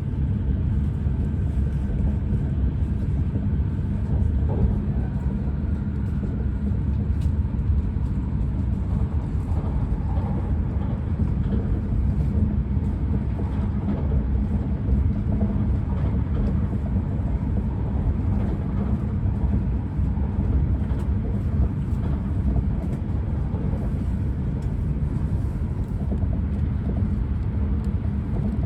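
E6 series Shinkansen running, heard from inside the passenger car: a steady low rumble of wheels on rail and running gear that holds even throughout.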